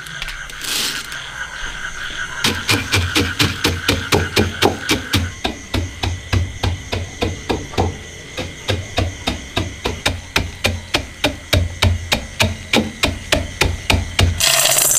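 Wooden pestle pounding peanuts in a stone mortar: a steady run of thuds, about three a second, starting a couple of seconds in as the nuts are crushed. Near the end the pounding stops and the crushed peanuts pour into a metal bowl with a short rattling hiss.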